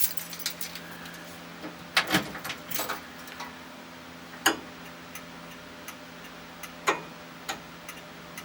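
A string of irregular sharp clicks and light knocks from an ignition key and switches being worked in an old pickup's cab, the loudest about two, four and a half and seven seconds in, over a faint steady electrical hum.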